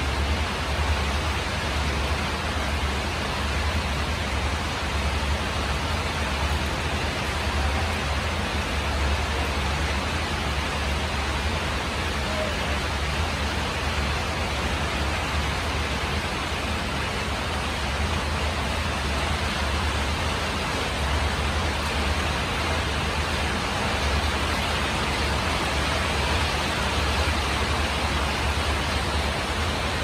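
Steady rain falling on a corrugated tin roof, an even hiss with a low rumble underneath.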